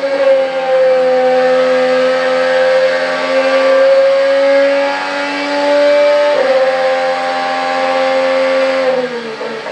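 Onboard IndyCar engine running at high revs with a steady, high-pitched note. A quick gearshift comes about six and a half seconds in. The revs drop near the end as the car comes off the throttle.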